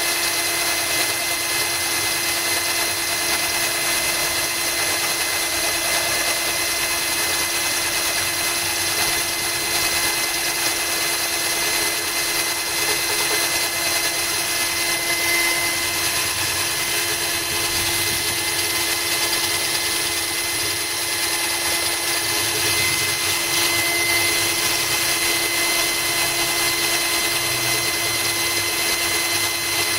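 Cordless drill running at a steady speed, a core bit grinding into a glass bottle under a trickle of hose water, with a constant whine.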